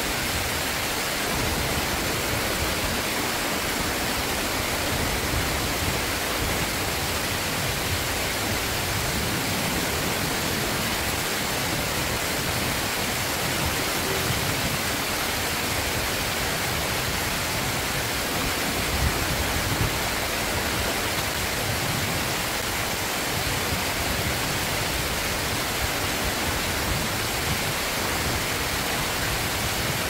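Steady rush of stream water pouring over a low concrete weir and running across its apron.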